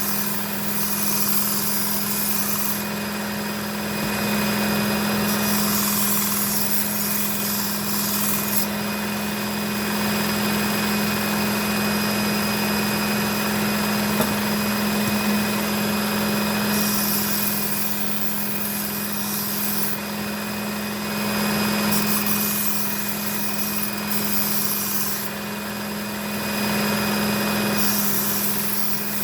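Work Sharp Ken Onion Edition belt sharpener running with a steady motor hum while a Shun Damascus kitchen knife is drawn across its abrasive belt; a grinding hiss comes and goes with each of several passes.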